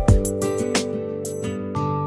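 Instrumental background music: guitar over a steady drum beat, with a deep kick at the start.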